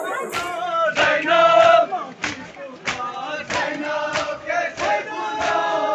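A crowd of mourners chanting a Muharram lament together in long, gliding notes, kept in time by sharp beats about every two-thirds of a second.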